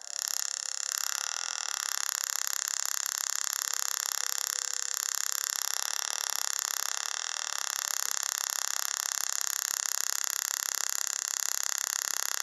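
Small transistor-driven tabletop Tesla coil running, its spark and corona from the top sphere making a steady, high-pitched buzzing hiss. It switches on suddenly at the start and holds unchanged.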